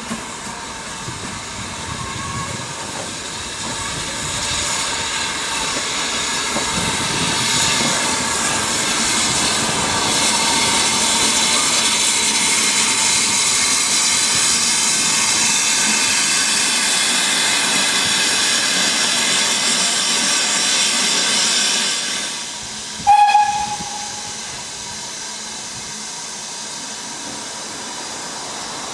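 Steam locomotive letting off a long, steady hiss of steam that grows louder over about twenty seconds and then cuts off suddenly. About a second later comes one short, loud toot of its whistle.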